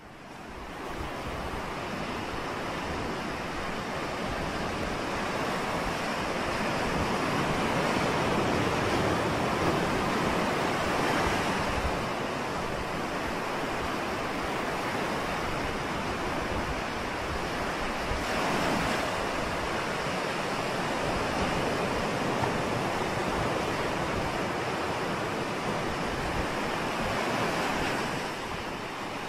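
Ocean surf breaking and washing up a sandy beach: a steady rush that swells louder about eight seconds in and again around eighteen seconds.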